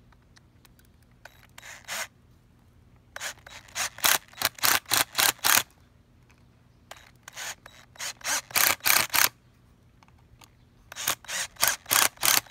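Cordless 20-volt driver driving screws through a wooden block into the bed frame, in short trigger bursts. There are four runs of rapid pulses with pauses between them; the first run is brief.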